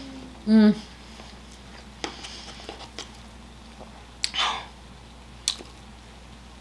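A person tasting pasta: a brief hummed "mm" about half a second in, then a few light clicks of a metal fork against a plate and a short breathy sound near the middle.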